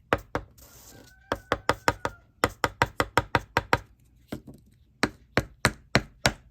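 The filter of a small handheld cordless vacuum being tapped repeatedly against a hard surface to knock the dirt out of it. The sharp knocks come in quick runs of several, about four or five a second, with short pauses between the runs.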